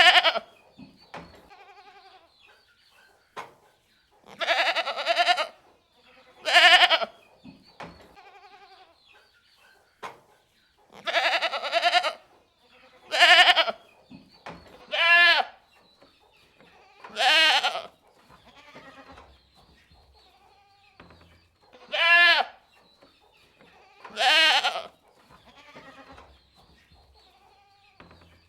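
Goats bleating: a series of loud calls a couple of seconds apart, with fainter bleats between them. The later calls have a wavering, quavering pitch.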